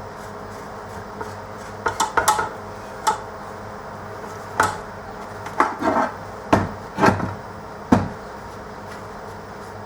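Tools and metal parts being handled and set down on a hard surface: a string of short knocks and clatters, about eight in all, over a steady low hum.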